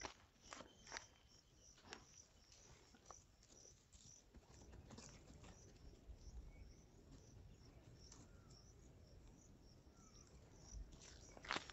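Faint insects chirping, a short high pulse repeated a few times a second without a break. A few sharp clicks come through in the first two seconds and again near the end.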